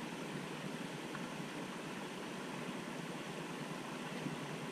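Steady, even background hiss with no distinct sound events.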